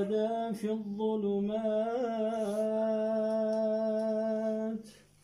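Male Quran recitation (tajweed) in a melodic chanting voice. The phrase ends in one long held note that stops shortly before the end.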